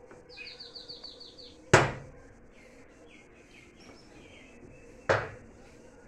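A songbird calling in a quick run of about eight short high notes, then a lower series of notes a little later. Two loud sharp bangs, about three seconds apart, stand out above the birdsong.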